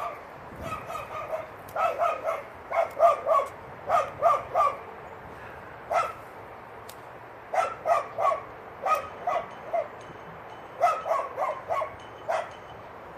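A dog barking repeatedly, in runs of several quick barks with short pauses between the runs.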